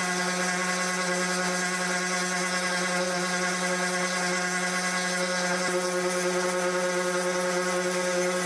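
A machine running steadily at an even pitch, with no change in speed.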